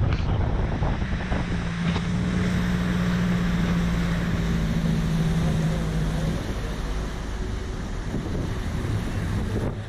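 Speedboat running fast across a lake: a steady engine drone under water rushing and splashing past the hull and wind buffeting the microphone. About six seconds in the engine tone drops away and everything gets a little quieter as the boat eases off.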